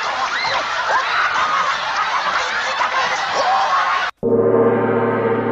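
A group of people laughing together, many voices overlapping, cutting off abruptly about four seconds in. Right after, a gong-like tone is struck and rings on steadily.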